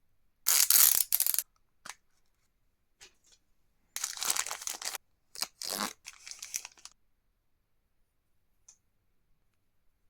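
Plastic toy packaging being torn open and crinkled by hand, in two main bursts: one about half a second in and another about four seconds in, with a few short rustles between and after.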